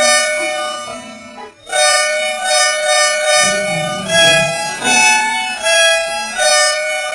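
Electronically altered Volvo bus horn sound effect: a reedy, harmonica-like horn tone held for about a second and a half, a short break, then a run of pulsing horn blasts that jump in pitch about four seconds in.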